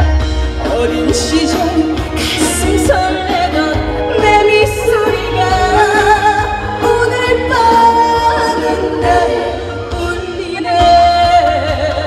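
A female singer singing a Korean trot song live into a handheld microphone over backing music through a stage sound system, with vibrato on the held notes.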